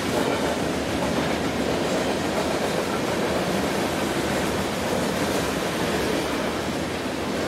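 BNSF coal train's coal cars rolling past at speed: a steady noise of steel wheels on rail.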